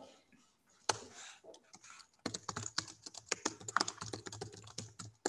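Typing on a computer keyboard: a few separate keystrokes, then a quick run of keystrokes from about two seconds in.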